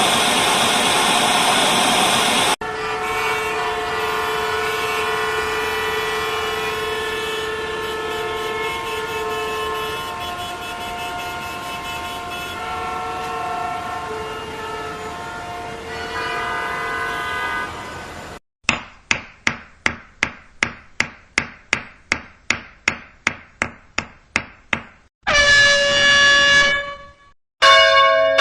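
A run of sound effects: a short burst of hiss, then a long stretch of many car horns sounding together at different pitches, starting and stopping. This is followed by a quick series of short, sharply fading beeps, about three a second, a brief tone, and near the end a bell struck and ringing.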